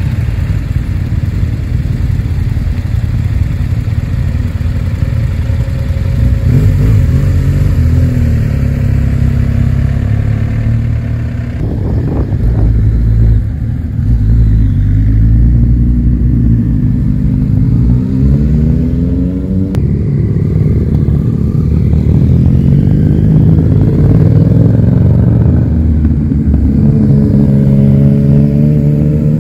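A stream of motorcycles, BMW GS adventure bikes among them, riding past one after another and accelerating away. The engines are loud, and their pitch rises several times as bikes pull off.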